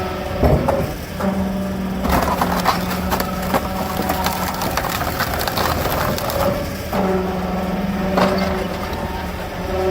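Hydraulic wood-splitting machine running with a steady hum, while logs crack, splinter and crunch as they are split, the crunching loudest in the middle of the stretch.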